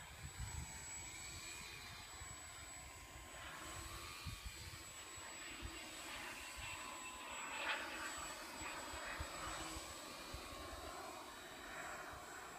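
The small 400-size electric motor of a Sukhoi radio-controlled model plane whining in flight, its pitch wavering up and down as the plane manoeuvres, with a brief louder surge a little past halfway. Low wind rumble on the microphone underneath.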